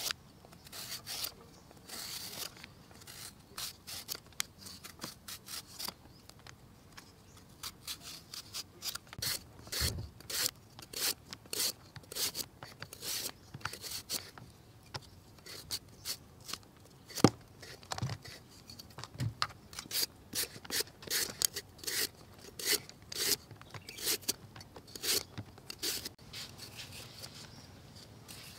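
Peeled green bananas shaved into thin slices on handheld metal slicers: a short scraping stroke for each slice, irregular, about one or two a second.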